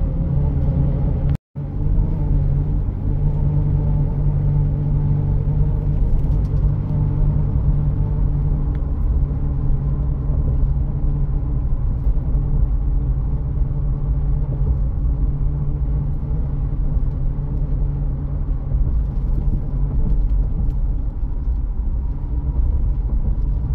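Steady low road and engine rumble heard from inside a car driving on a highway, with a brief cut to silence about a second and a half in.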